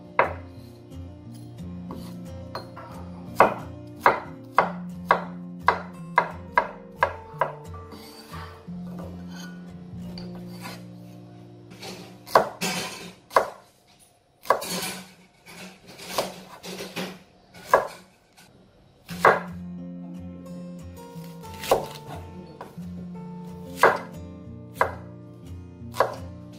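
Large kitchen knife chopping vegetables on a wooden cutting board: sharp, irregular chops, with a quick run of them early on and scattered strikes after. Soft background music plays underneath.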